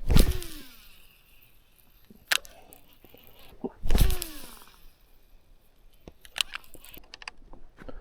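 Two heavy knocks about four seconds apart, each followed by a ringing tone that falls in pitch, with a few lighter clicks and knocks in between and after.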